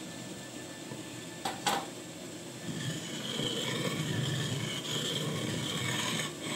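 Stone pestle grinding and scraping around a wet stone mortar (cobek), a steady rough rasp that gets louder about three seconds in. Two short knocks come a little before it.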